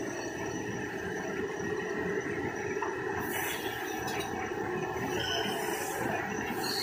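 Automatic plastic-film facial tissue packing machine running: a steady, dense mechanical rattle from its conveyors and drives, with a hiss joining about three seconds in.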